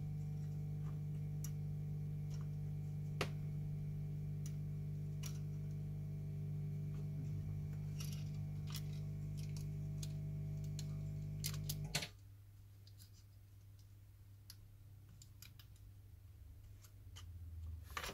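Hair dryer running with a steady low hum while heating the phone's adhesive, switched off suddenly about twelve seconds in. Small clicks and taps of tools on the phone sound throughout.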